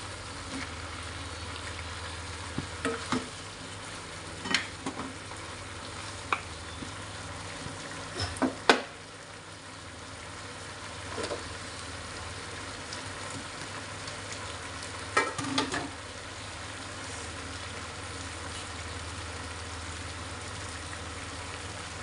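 Chicken feet and drumsticks sizzling and simmering in a thick sauce in a wok, a steady frying hiss. A wooden spatula knocks and scrapes against the pan several times in the first nine seconds and once more about fifteen seconds in.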